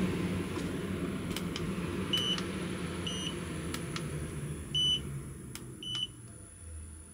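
Four short electronic beeps as buttons are pressed on the roof extractor fan's remote control, with a few faint clicks between them. Under them the fan runs steadily, then winds down and fades about six seconds in.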